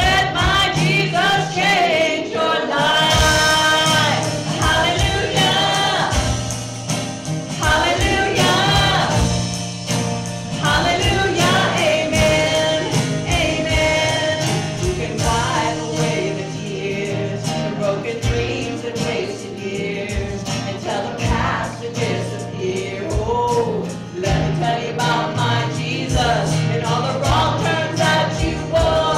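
Gospel worship song: singers performing over a live band with a steady beat and bass.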